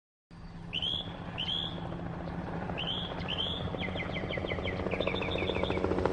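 Helicopter flying overhead, its rotor chop and engine growing steadily louder as it comes closer. Birds chirp over it: a few separate down-slurred calls, then quick runs of notes from about four seconds in.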